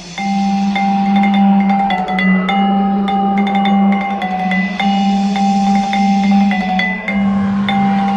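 Background music led by a marimba-like mallet instrument, playing short repeated notes over a steady low note.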